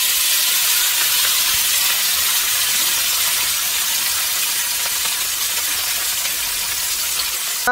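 Whole masala-marinated emperor fish (vilai meen) shallow-frying in hot oil in a pan: a dense, steady, high sizzle.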